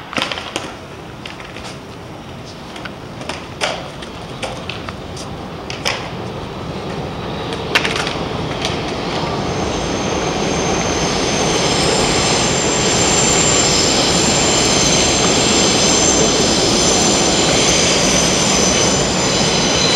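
Elevated subway train passing on the steel viaduct overhead, its rumble building from about halfway through, with a high, steady squeal above it. A few sharp clicks come in the first half.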